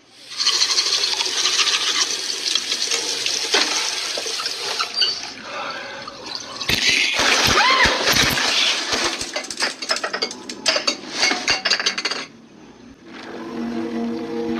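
Water rushing and splashing in a bathroom, with a louder stretch of splashing about halfway through and a quick run of sharp knocks after it. Near the end the water stops and a low droning hum takes over.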